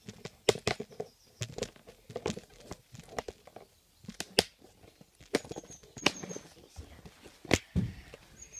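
Footsteps crunching and snapping through dry leaf litter, twigs and brambles, with rustling. The crackles come irregularly, several a second at the busiest.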